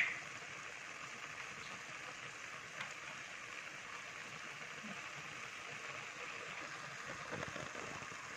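A pot of leafy stew bubbling at a steady boil, an even, faint hiss of bubbling, with a light click at the start.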